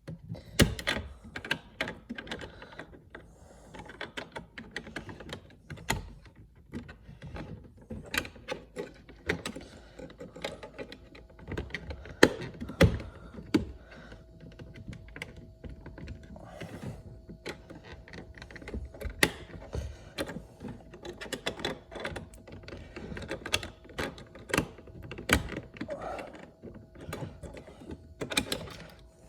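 Irregular clicks, knocks and rustles of hands working plastic interior door trim and fishing LED light wiring through the door panel.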